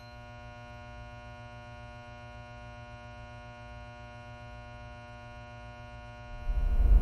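Steady electrical hum with many even overtones, unchanging. Near the end a deep rumble swells in and grows loud.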